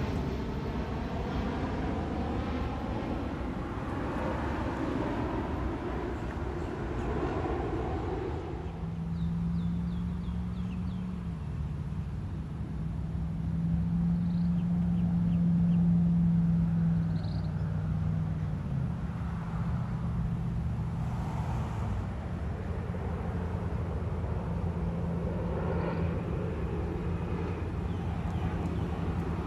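Outdoor vehicle noise: a broad rushing sound for about the first eight seconds, then a steady low engine hum for the middle stretch, with the rushing noise swelling again near the end.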